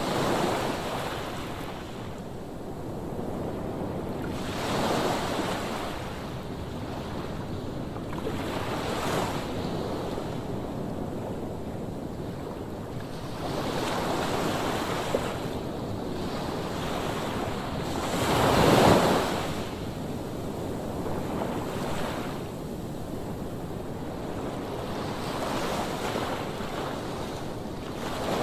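Waves breaking and washing in with wind, a rushing noise that swells and fades every few seconds; the biggest swell comes about two-thirds of the way through.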